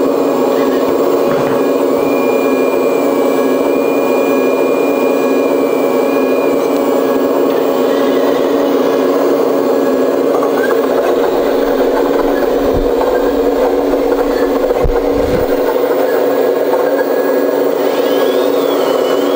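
Sound module of a hydraulic RC Liebherr R 970 SME excavator playing a steady diesel engine sound while the grapple arm is worked. A higher steady whine joins for a few seconds near the start, and a short rising-and-falling tone comes near the end.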